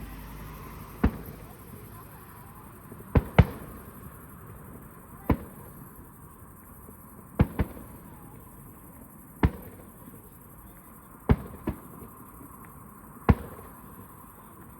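Aerial fireworks shells bursting overhead: about ten sharp bangs at irregular gaps of one to two seconds, some coming in quick pairs.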